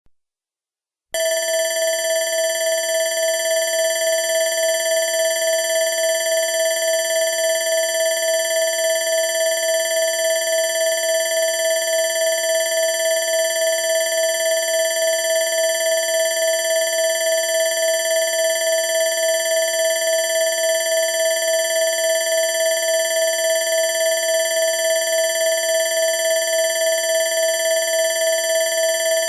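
Electronic alarm bell sounding: a loud, steady, rapidly pulsing electronic ring of several fixed pitches, starting about a second in.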